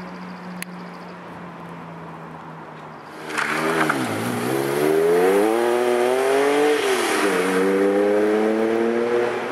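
A sports car's engine accelerating hard: the revs dip, then climb steadily, fall sharply at an upshift about seven seconds in, and climb again.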